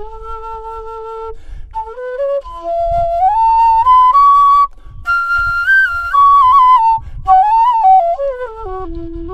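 A bamboo flute playing a slow melody. It steps up to a high, louder phrase in the middle, then comes back down to a low held note near the end, with short breath pauses between phrases.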